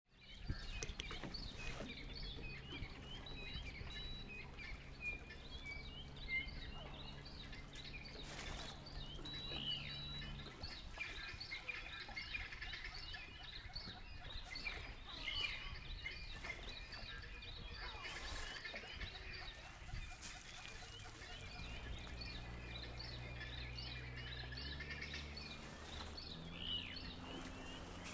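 Many small birds chirping and calling continuously in a dense chorus. Underneath runs a low steady hum that drops out about a third of the way in, returns later and steps up in pitch near the end.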